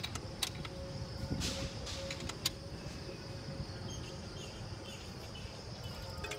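A few light metallic clicks as an open-end wrench works the rear axle nut of a bicycle, in the first two and a half seconds. Steady high insect chirring runs behind them.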